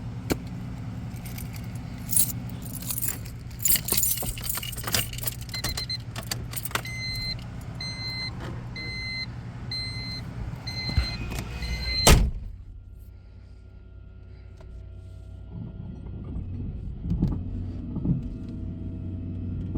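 Car sounds: keys jangling and clicking over a steady low hum, with a warning chime beeping a little more than once a second for several seconds. About twelve seconds in a loud thump, like a car door shutting, cuts the chime and most of the noise, leaving a much quieter hum.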